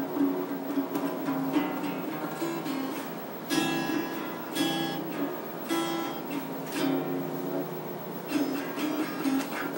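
Acoustic guitar being played by hand: picked notes and strums, with a strong strum about once a second from about a third of the way in.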